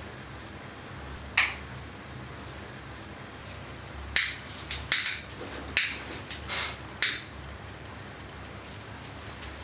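A lighter's flint wheel being flicked repeatedly, each strike a sharp click with a short scrape. There is one strike about a second in, then a quick run of about eight before the flame catches. A low steady hum sits underneath.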